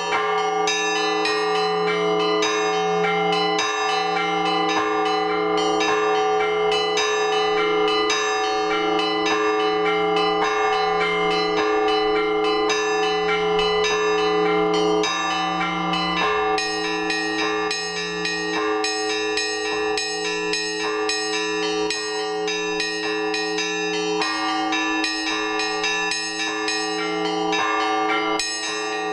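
Russian Orthodox church bells rung from the belfry by a bell-ringer: rapid strikes on the small bells over a deeper bell struck about every second or two. All the bells ring on together in one continuous peal.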